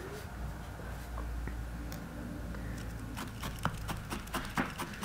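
A felting needle tool jabbing into wool on a burlap-covered felting pad: irregular soft clicks, a few a second, starting about three seconds in, over a low steady hum.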